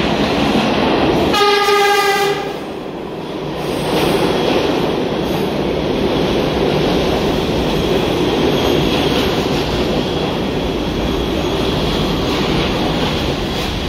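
New York City subway train of R68A cars sounding one horn blast about a second long a little over a second in, then the steady loud rumble of its wheels and motors as the cars run along the platform.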